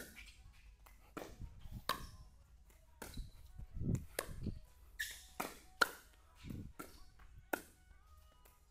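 Pickleball rally: paddles striking a plastic pickleball in a quick, irregular string of sharp pops, about one to two a second.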